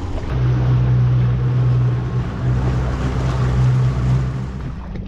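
Twin Mercury FourStroke outboard motors running, a steady low drone over the wash of water and wind noise, dropping away near the end.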